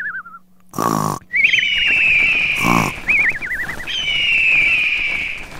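Cartoon snoring sound effect: two snorting inhales, each followed by a high whistled exhale that wavers up and down and then holds a steady note.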